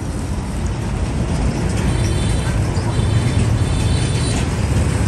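Road traffic running steadily: a continuous low engine-and-tyre rumble of passing vehicles.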